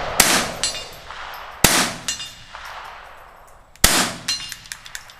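Three rifle shots, the first right at the start, the next about a second and a half later and the last about four seconds in, each echoing briefly under the roof of a covered firing line.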